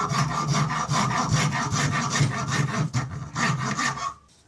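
Hand rasp filing a mahogany peg blank clamped in a vise, rounding off its octagonal corners, in rapid repeated strokes that stop about four seconds in.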